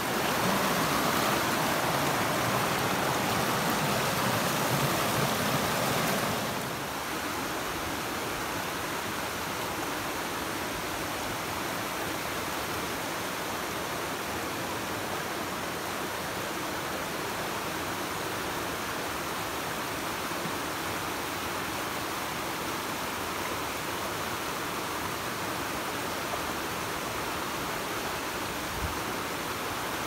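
Swollen river water rushing over rocks, a steady loud rush; about six seconds in it drops suddenly to a softer, even flow of a calmer stretch of the stream.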